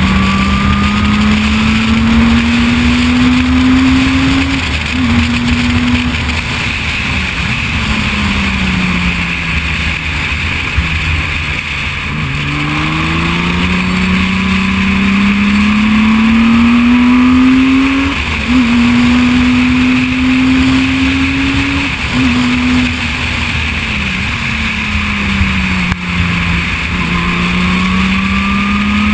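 Reynard single-seater's 3.5-litre V6 engine driven hard on track. Its pitch climbs with short breaks at the upshifts, drops away as the car slows, about a third of the way in and again near the end, and then climbs once more.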